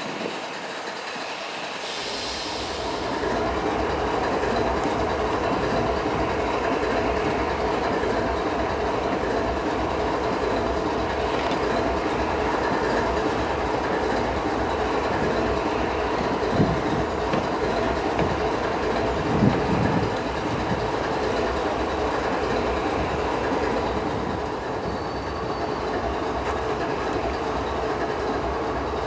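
Freight train rolling past, its steel wheels running and clattering on the rails. The sound builds over the first few seconds and then holds steady, with two heavier thumps in the middle.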